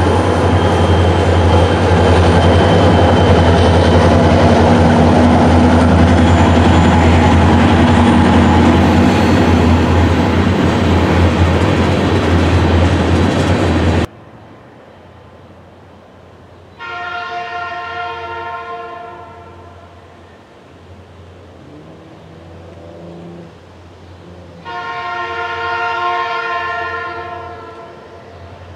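Freight cars rolling past close by: a loud, steady rumble with wheel and rail noise that cuts off suddenly about halfway through. Against a quieter background, an approaching diesel locomotive then sounds its multi-chime air horn twice, each blast about two and a half seconds long, the second a little louder.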